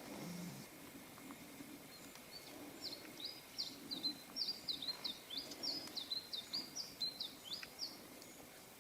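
A songbird singing a quick run of short, high, sliding notes, about four a second, starting a couple of seconds in and stopping near the end. A brief low sound comes right at the start.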